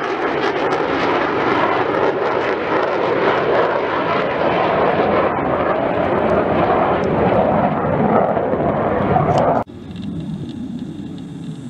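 F-35 fighter jet flying past, its single jet engine a loud, steady noise that loses its higher hiss over the first several seconds as it moves on. It cuts off abruptly about ten seconds in, giving way to the much quieter, duller sound of a pair of distant jets.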